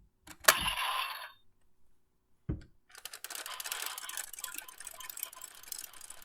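Hard plastic clicks and rattling as a Zenkaiger toy gear is taken out and a new one fitted into the transformation toy. There is a sharp snap about half a second in, a single knock a couple of seconds later, then a busy run of small clicks and rattles for the last few seconds.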